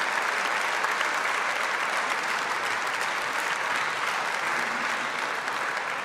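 Audience applauding: a dense, steady patter of clapping that eases off slightly near the end.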